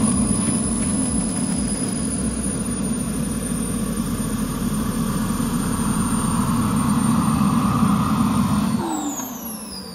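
Twin model-jet turbine engines of an RC A-10 running steadily with a high whine. About nine seconds in they are shut down, and the whine falls in pitch as the turbines spool down.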